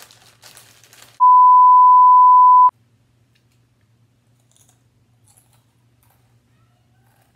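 A brief rustle of a chip bag, then one loud, steady electronic beep about a second and a half long that cuts off sharply: a censor bleep edited over the sound track.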